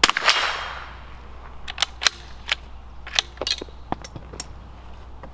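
A .22 LR shot from a Bergara B-14 bolt-action target rifle, with an echo that rings for about a second. Then a string of sharp metallic clicks as the bolt is worked, which ends in a double feed that the shooter blames on his own handling.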